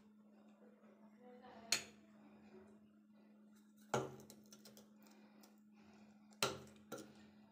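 Three sharp metallic clinks of a steel spoon against a steel pan and plate, a couple of seconds apart, with a smaller fourth clink just after the third, over a faint steady hum.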